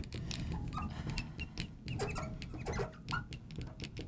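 Felt-tip marker writing on lightboard glass: an irregular run of short squeaks and light ticks as the tip strokes and taps the glass.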